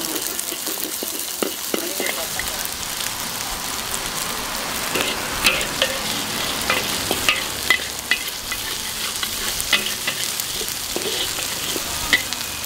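Pad Thai rice noodles and egg sizzling in hot oil in a metal wok, stir-fried with a metal spatula. Sharp scrapes and clinks of the spatula on the wok come most often in the second half.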